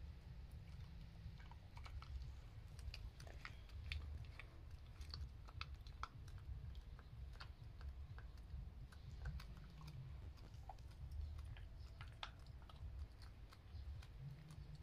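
Chinese Crested dog chewing raw bone with meat: faint, irregular crunching and clicking of teeth on bone, over a low rumble.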